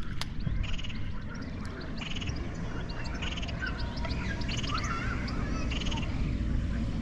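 Frogs croaking in a chorus, a rasping pulsed call repeating roughly once a second, with faint bird chirps among them.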